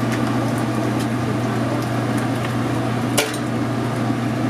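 Steady low machine hum of kitchen equipment, with light clicks of a serving spoon against steel pans and a foam container as food is dished out, and one sharper clack about three seconds in.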